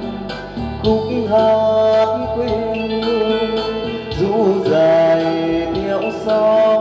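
Karaoke backing music: the instrumental lead-in of a Vietnamese song, with a held, wavering melody line over steady accompaniment, just before the vocal enters.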